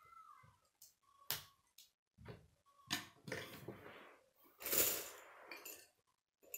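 Plastic K'nex parts clicking, knocking and rattling as a wheel is fitted to a K'nex car and the car is handled on a wooden tabletop. A brief squeak at the very start; the loudest clatter comes a little past the middle.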